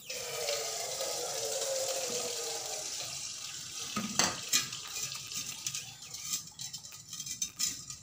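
R134a refrigerant gas rushing from a small can through the charging hose as the can tap is opened: a sudden hiss with a whistling note that slowly falls in pitch and fades over several seconds. Then a few sharp clicks and knocks as the metal can and its tap are handled.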